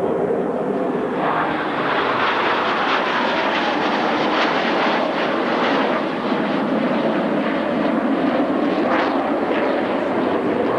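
Jet engines of F/A-18 Hornets during a flyby: a steady roar that swells and brightens about a second in, with a tone that falls in pitch a few seconds later, and stays loud throughout.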